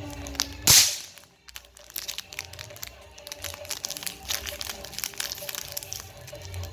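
A single loud, short burst of noise under a second in, then a steady run of small crackling clicks of plastic being crumpled and handled, over faint background music.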